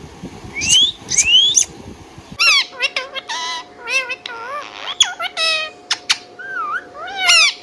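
Indian ringneck parakeet calling: two rising whistles in the first couple of seconds, then a rapid run of short, harsh squawks and chirps.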